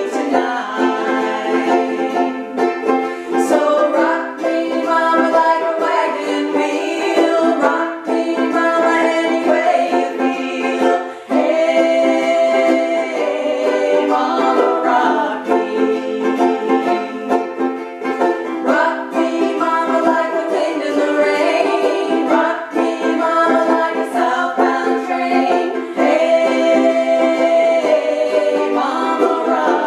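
Two women singing a song together while strumming ukuleles, a steady strummed chord accompaniment under the sung melody.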